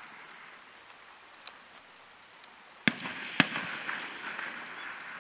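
Distant gunfire from an army firing range: two sharp shots about half a second apart near the middle, after a couple of fainter cracks.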